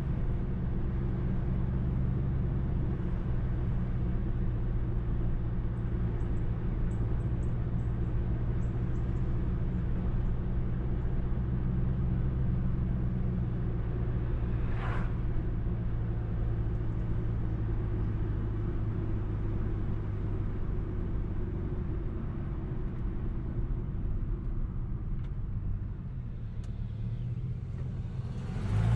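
2005 Mercury Grand Marquis 4.6-litre V8 with a muffler delete (catalytic converters into an H-pipe, no mufflers), droning steadily at cruise while driving. It eases off and gets quieter near the end, and there is one brief sharp tick about halfway through.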